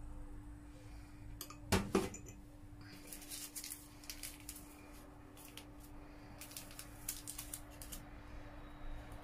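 Metal teaspoon knocking and clinking against ceramic coffee cups: two sharp clinks about two seconds in, then bursts of quick light taps as it stirs. A steady low hum runs underneath.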